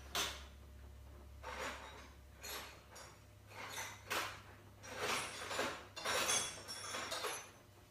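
Metal hand tools clinking and sliding against each other in irregular clusters as someone rummages through a tool drawer for a punch.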